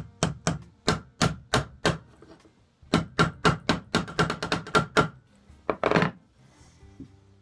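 Ball peen hammer tapping on the end of a draw knife's steel tang, peening it over a metal end cap so that it mushrooms and locks the handle on. A run of about seven taps, a short pause, then a quicker run of about a dozen taps at some five a second, and a brief rustle near the end.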